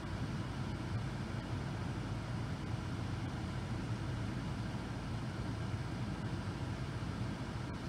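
Car engine idling steadily, heard from inside the cabin as a low, even hum.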